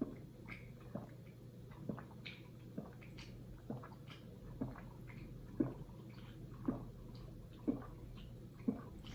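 Faint, steady dripping: a soft wet drop about once a second, evenly spaced.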